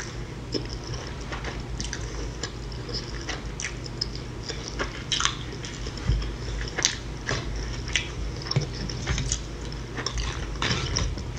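Close-miked chewing and biting of food, with short crisp crunches at an irregular pace, as of tortilla chips being eaten.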